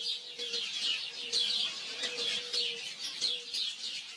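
Small birds chirping in a busy chorus: many short, high chirps that slide down in pitch, about three a second.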